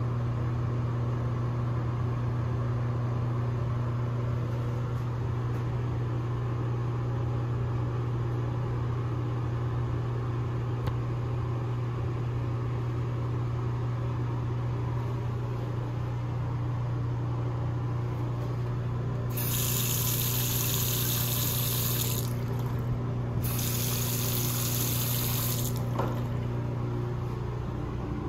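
Steady low hum throughout. Two-thirds of the way in, a sink faucet's water stream hisses into the basin twice, about three and two and a half seconds long, with a short gap between, and a click near the end.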